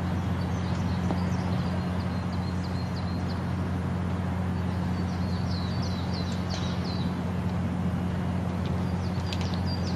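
Birds chirping in three short runs of quick high notes, over a steady low hum and an even outdoor hiss.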